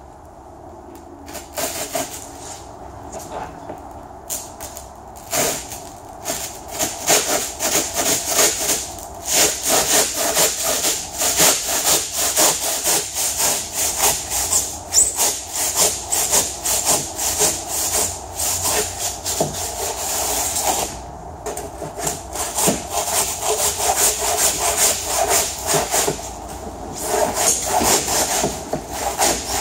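Wood handsaw cutting through set two-part polyurethane foam, rough-shaping it with repeated back-and-forth strokes. The strokes start slowly and lightly, settle into a fast steady rhythm, break off briefly about two-thirds of the way through, then carry on.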